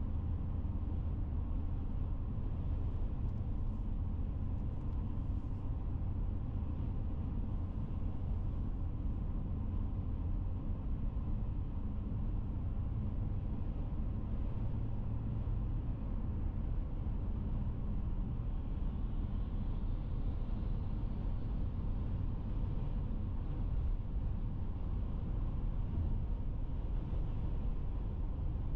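A car driving steadily at speed: an even low rumble of tyres and engine, with no changes.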